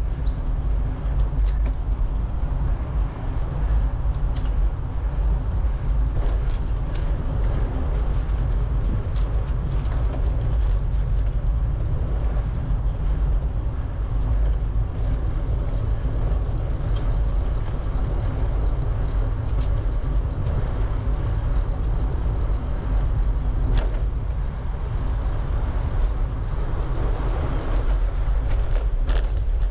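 Riding a bicycle with the camera microphone out in the moving air: a steady wind noise that is heaviest in the low end, broken by a few sharp clicks.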